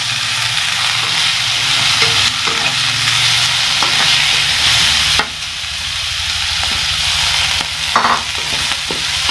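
Shredded cabbage sizzling as it fries in a wok, a steady hiss, while a metal spatula stirs and scrapes it against the pan with a few short knocks. The sizzle eases slightly about five seconds in.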